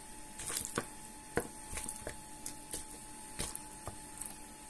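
Marinated chicken pieces being put by hand into a clear plastic food box: irregular light knocks and taps against the plastic, about ten in all.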